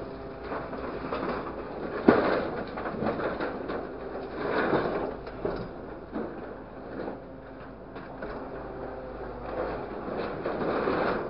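A grapple truck's engine runs steadily while its claw drops and shifts scrap sheet metal in a truck bed: metal clattering and scraping, with one sharp clang about two seconds in.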